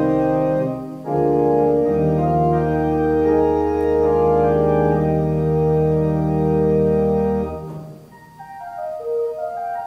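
Church organ playing slow, held chords over deep pedal bass notes, with a brief break about a second in. Near the end the bass drops out and softer, higher single-line notes carry on.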